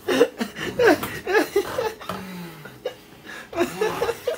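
Wordless human voices: short bursts of laughter, and a low falling groan about two seconds in.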